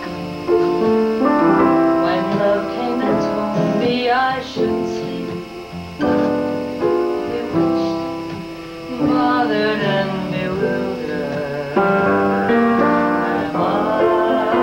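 Piano played in slow, sustained chords, the harmony changing every second or so. A singing voice with vibrato joins in at times, most clearly towards the end.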